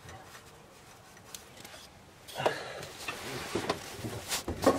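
Handling noise as the top of an old oil standpipe is worked out of a Ford 6.0 Power Stroke's cylinder head by a gloved hand: rustling and rubbing with scattered clicks starting about halfway through, and a couple of sharp knocks near the end.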